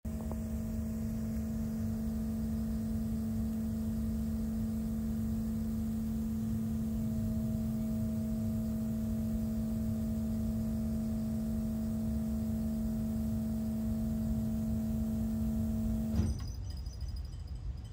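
Steady mechanical hum from a running machine, a single low tone with overtones over a low rumble, cutting off abruptly with a click about 16 seconds in; a fainter low rumble carries on.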